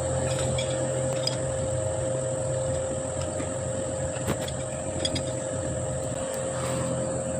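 An electric motor running steadily: a constant hum with a high whine, with a few light clicks.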